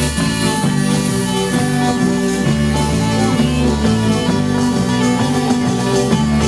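Live folk dance tune played by a band. A zampogna (southern Italian bagpipe) and an organetto (button accordion) carry the tune over an evenly pulsing bass.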